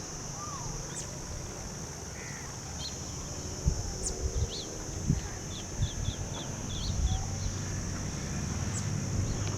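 Small birds chirping: a run of short, quick high chirps in the middle of the stretch. Under them is a steady high-pitched drone, and there are a few low thumps.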